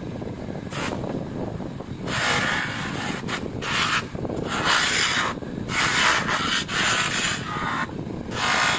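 Rough rubbing on a metal motorcycle footpeg as it is sanded and polished, coming in repeated strokes of about half a second to a second with short breaks between them.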